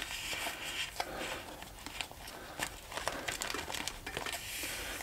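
Rustling and scattered light clicks of wiring being pushed into the back of a plastic motorcycle headlight housing: a rubber-sheathed cable and plastic connectors rubbing and knocking against the housing as they are tucked in.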